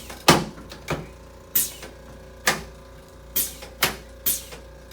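Chiropractic drop table's drop section snapping down under light thrusts: a series of sharp clacks, six or seven of them, some louder than others.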